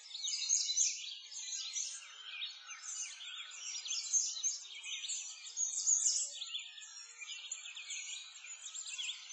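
Many birds chirping and singing at once: a dense chorus of short, high calls and quick whistled glides.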